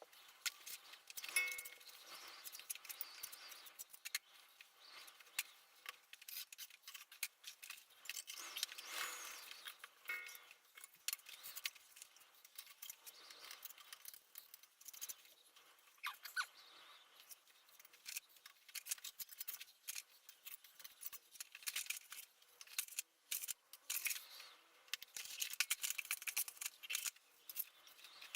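Hand-tool work: many small clicks, taps and scrapes coming irregularly, with no motor running.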